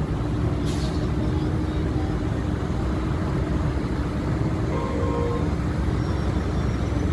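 Diesel engines of heavy Scania tractor units running steadily under a very heavy load, moving at walking pace, with a steady low drone. A brief faint hiss comes about a second in.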